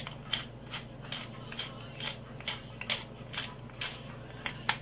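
Wooden pepper mill grinding black peppercorns: a short dry crunching click with each twist, about two to three a second.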